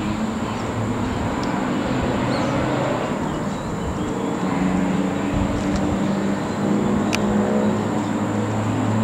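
Road traffic: motor vehicle engines running with a steady low hum over background noise, joined by a thin steady high tone, and one short sharp click about seven seconds in.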